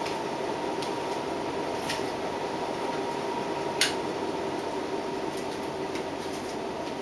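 1981 Nadair spinner ceiling fan running on its second-highest speed: a steady whir with a motor hum, the bearings being the loudest part. Light ticks come about once a second, with one sharper tick a little before the middle.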